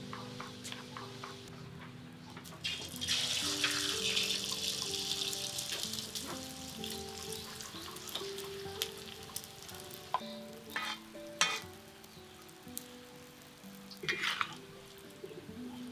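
Food frying in hot oil in a pan: a loud sizzle starts suddenly about three seconds in and slowly dies down, with utensil clicks against the pan and a second short burst of sizzling near the end.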